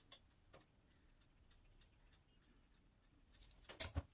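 Near silence with a few faint clicks, then a couple of light taps near the end.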